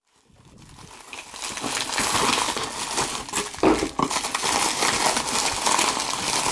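Cardboard shipping box being handled and opened, with its paper packing crinkled and pulled aside: a dense run of rustles and small clicks that starts faint and builds over the first couple of seconds.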